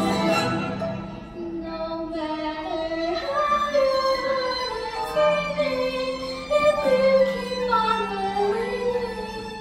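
A solo voice singing a slow, held melody over musical accompaniment.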